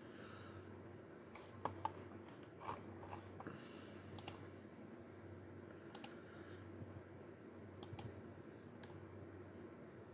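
Faint room tone with a low steady hum, broken by scattered light clicks and taps about every second or two, the sharpest a little after four seconds in.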